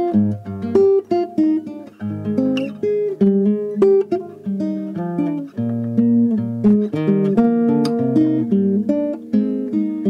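Acoustic guitar music: a run of picked notes and chords.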